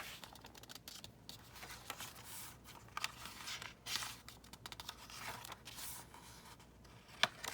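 Paper pages of a handmade junk journal being turned and handled: uneven rustling and crinkling of mixed papers and cardstock, with a few sharp snaps, the loudest shortly before the end.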